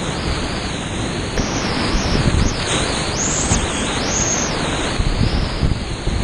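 Steady rushing roar of big-water whitewater rapids heard from a kayak in the middle of the current, with a low buffeting on the microphone.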